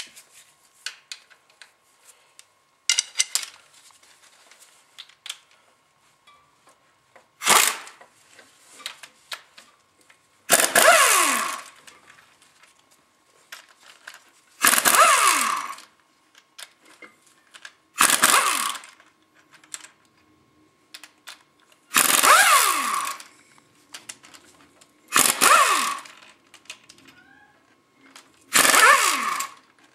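Power tool spinning out the front pump bolts of a Ford 4R100 transmission in about eight short bursts, each about a second long with a whine that drops in pitch as it winds down.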